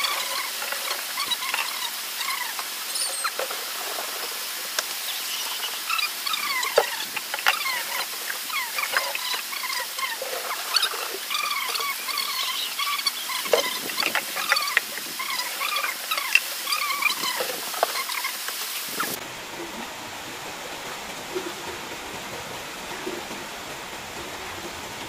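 Water being poured and splashing into plastic containers, with many quick, high little gurgling chirps. About three quarters of the way through, the chirping stops and a softer, even hiss of pouring from a pitcher remains.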